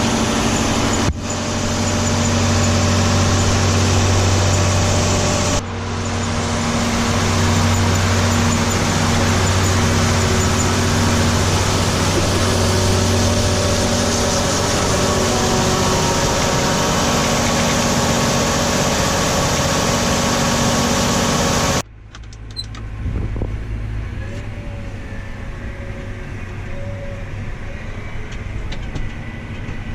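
Engine-driven machinery running steadily, a loud even hum under a broad rushing hiss. About 22 s in it cuts abruptly to a quieter, lower engine sound.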